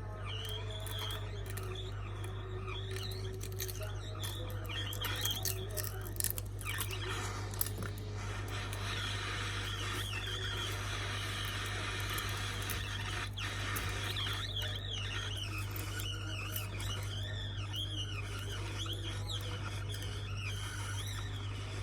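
Steady electric hum of a back-glass removal pen chipping cracked glass off an iPhone X, with scraping and squeaking from the glass.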